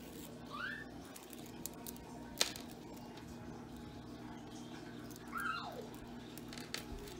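A cat meowing twice: a short rising call about half a second in and a longer falling one a little after five seconds. A single sharp click sounds between them, over a steady low hum.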